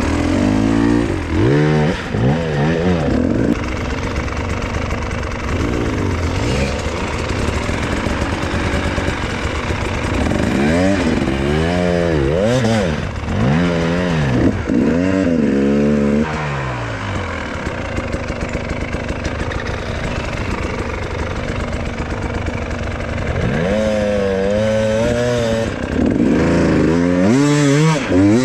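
Two-stroke KTM 300 TPI enduro bike engine, revved up and down over and over in short blips. Around the middle it settles into a steadier, lower run for several seconds, then picks up the blipping again near the end.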